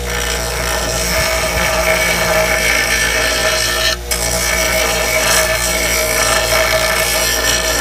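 A bar of green honing compound pressed against the spinning MDF wheel of a Drake knife-honing machine, charging the wheel with compound. It makes a steady rubbing hiss over the hum of the machine's motor, broken off for an instant about four seconds in.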